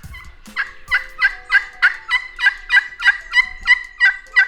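A hand-operated turkey call run in a long, even series of yelps, about three notes a second.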